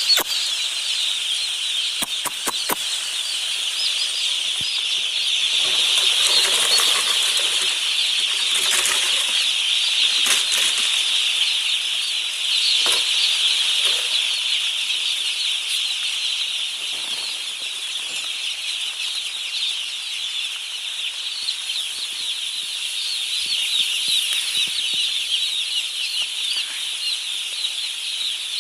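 Dense, steady chorus of high peeping from a large flock of broiler chicks under brooding.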